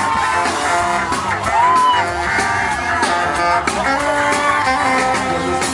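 Live rock band playing an instrumental passage: electric guitar lead with bent notes over bass and drums, amplified through a PA.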